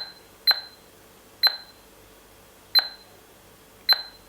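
Five short, high beeps from the HA802 smart lock's touch keypad as keys are pressed, irregularly spaced. They are the key-press confirmation tones while entering its settings menu.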